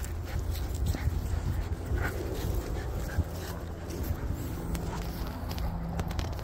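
A bulldog making a few short, whiny vocal sounds while it tugs at its leash with its mouth in play.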